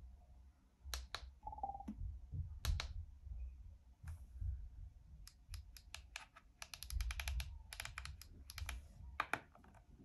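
Soft clicking of the Yoto Player 3rd Gen's orange rotary knob turning through its steps as the volume is raised: a few single clicks early, then a quick run of clicks in the second half, along with light handling of the player's plastic body.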